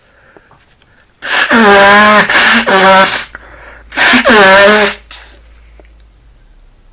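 A man sneezing hard, set off by dust, in two loud voiced bursts about a second apart; each falls in pitch as it ends.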